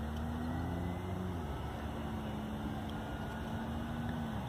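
Distant jet engines of a taxiing twin-engine airliner: a steady low rumble with a faint hum that dips slightly in pitch about a second and a half in and again near the end.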